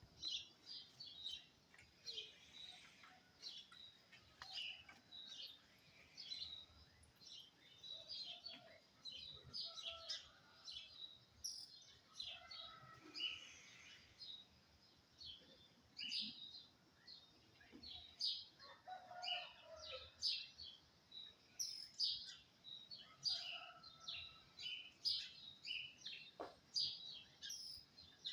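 Birds singing, a steady stream of short, high chirps and calls overlapping one another, with a few lower, longer notes mixed in.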